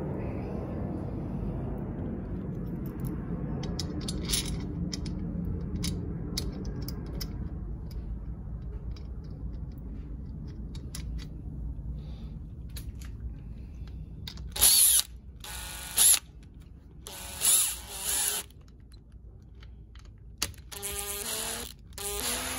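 Cordless drill-driver whirring in four short bursts in the second half, driving home the bolt of the band clamp that holds the brake booster's two shells together. Before that, low rumbling and scattered clicks of the metal clamp band being worked into place by hand.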